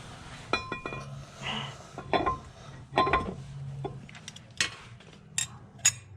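Metal tools and parts clinking and knocking together during hand work on a car's clutch and drivetrain: a string of sharp strikes, several with a brief metallic ring, then lighter ticks near the end.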